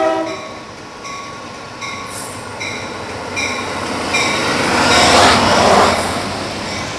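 Amtrak F40PH diesel locomotive #406 and its passenger train passing: a horn blast cuts off in the first half-second, then the rumble and wheel noise build to their loudest about five seconds in and ease off. Through it a bell strikes about every three quarters of a second.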